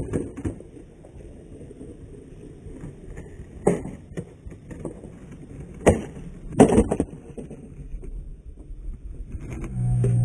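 Skateboard wheels rolling on concrete, with several sharp clacks of the board on concrete; the loudest come about six and seven seconds in, as the board flies off a missed trick and lands on the ramp. A short low hum sounds near the end.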